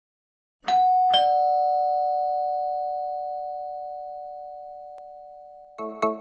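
Two-note 'ding-dong' doorbell chime: a higher then a lower tone struck about half a second apart, both ringing on and slowly fading. Near the end, plucked music notes begin.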